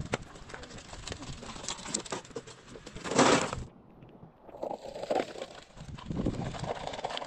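Soil and small stones tipped from a wheelbarrow, a gritty rushing and pattering with many small clicks, loudest about three seconds in. It cuts off abruptly, followed by fainter scattered crunching of rubble.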